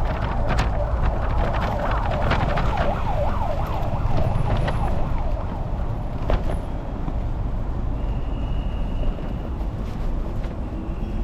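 Busy city-street noise with a heavy low rumble of wind on the camera microphone. Through the first half, a fast up-and-down warbling tone, like a yelping siren, repeats several times a second, then fades.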